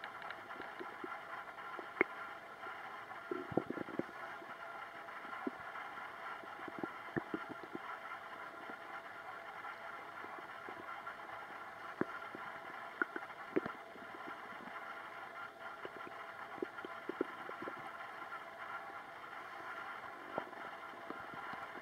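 Human stomach gurgling: scattered short pops and squelches over a steady background hiss, with small clusters about four seconds in and again around thirteen seconds.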